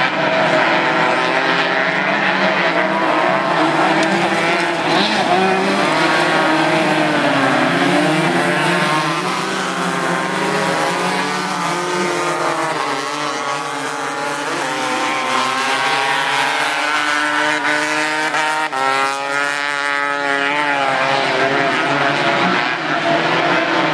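Several 250-class crosskart engines racing, their overlapping high revs rising and falling as the karts accelerate, shift and brake through the corners, with a strong rising rev about three quarters of the way in.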